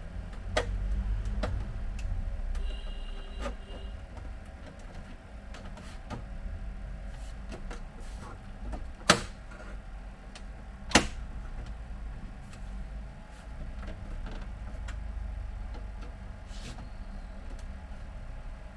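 Plastic clicks and snaps as a printer's plastic panel is worked loose by hand. There are two sharp, loud snaps about two seconds apart near the middle, over low handling rumble.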